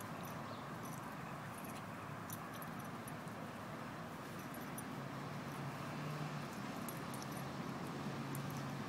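Faint sounds of a pit bull and a small puppy play-wrestling on grass: light jingling of collar tags and scuffling. A steady low hum comes in about halfway through.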